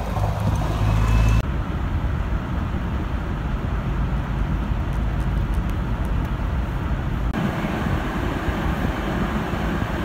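A city transit bus's diesel engine droning as it pulls away, then after a cut a steady low road rumble from inside a car driving on a slushy, icy street. About seven seconds in, another cut brings a steadier outdoor wind noise.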